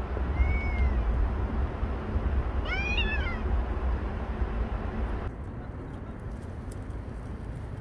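A cat meowing twice: a short call about half a second in, then a longer, louder meow that rises and falls about three seconds in. A steady low rumble runs underneath and drops away about five seconds in.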